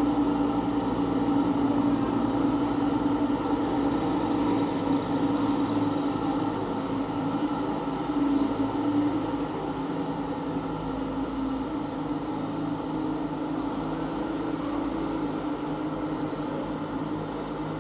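Steady droning hum of the air conditioning in a large indoor showroom, slowly fading.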